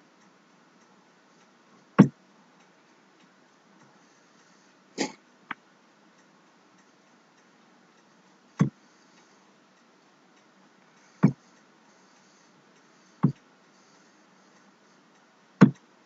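Computer mouse clicking to the next photo: seven sharp single clicks every two to three seconds, two of them close together about five seconds in.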